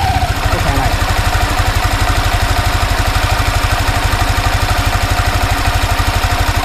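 Yamaha Exciter 155 VVA's single-cylinder four-stroke engine idling with a steady, even beat, recorded close up on the bike.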